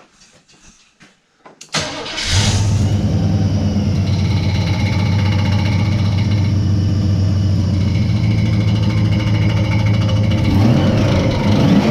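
Holden 5.0-litre V8 in a VP Commodore, fitted with a Gilmer belt drive, cranking and firing up about two seconds in, then idling steadily. The revs rise and fall briefly near the end. Faint clattering of handling comes before the start.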